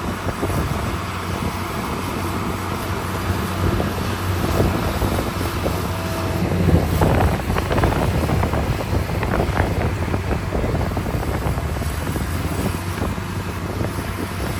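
Heavy diesel earthmoving machinery running steadily, with a cluster of clanks and rattles about halfway through.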